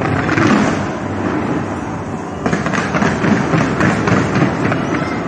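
Fireworks going off in a dense, continuous barrage: a steady rumble of bangs that turns into rapid crackling and popping about two and a half seconds in.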